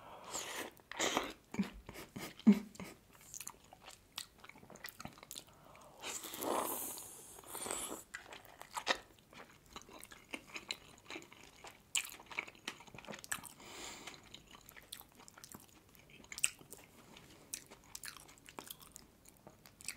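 Close-miked chewing and biting of large steamed meat dumplings (manti): wet mouth sounds and frequent short smacks, with a longer hissing stretch about six to eight seconds in.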